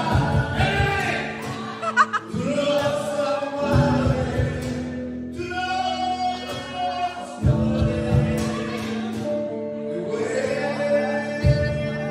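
A man singing live into a microphone through a PA speaker, accompanied by an electric guitar, with long held notes.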